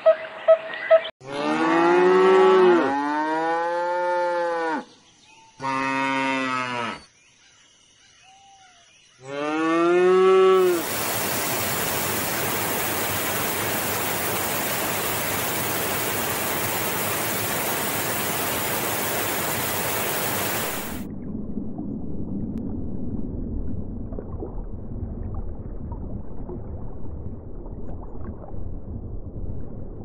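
Cattle mooing: several long, drawn-out moos that rise and fall in pitch over the first ten seconds, with a brief pause between some of them. After that comes a steady, loud rushing hiss for about ten seconds that cuts off suddenly, followed by a quieter low rumbling noise.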